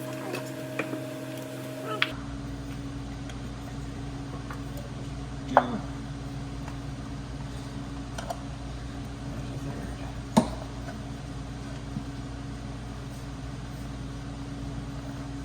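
A few sharp metallic clicks and clinks of hand tools and parts while the rear coil packs come off a V6 engine, two of them loud, about five seconds apart, over a steady low hum.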